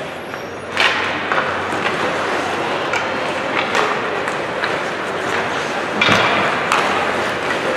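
Ice hockey game sound in an arena: a steady wash of skating and crowd noise with scattered sharp clacks of sticks and puck, the loudest knock about six seconds in.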